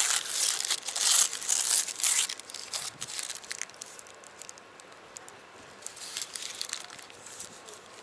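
Kebab wrapper crinkling and rustling close to the microphone as the wrap is handled. The crinkling is dense and loud for the first couple of seconds, then fades to scattered crackles with another brief flurry near the end.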